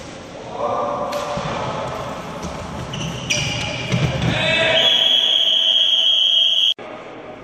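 Floorball play on a sports-hall floor: thuds and high shoe squeaks as a player drives in and dives at the goal, with shouting voices. This is followed by a long, steady high-pitched tone lasting about two seconds that cuts off abruptly.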